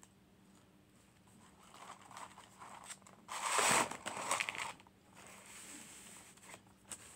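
Red paper McDonald's fries carton crinkling and rustling as it is handled and the fries are tipped out of it, loudest about three and a half seconds in, with softer rustles just before.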